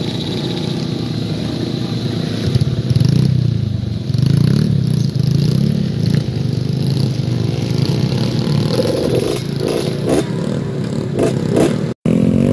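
Motorcycle engine running and revving, its pitch rising and falling with the throttle. The sound cuts out for an instant near the end.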